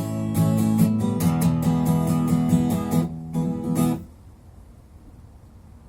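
Acoustic guitar strummed through the closing chords of a song, then stopping abruptly about four seconds in, leaving only quiet room sound.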